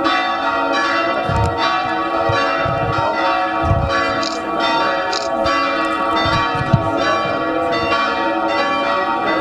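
Church bells ringing continuously, many overlapping tones struck again and again, with a few low thumps underneath.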